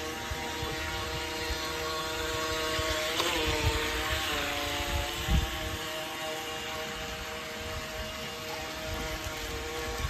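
Small electric motor of a Force1 Velocity H102 RC speedboat whining steadily as the boat runs across a swimming pool, with a hiss of water spray. The whine dips in pitch and comes back between about four and six seconds in as the throttle changes, and a low thump stands out about five seconds in.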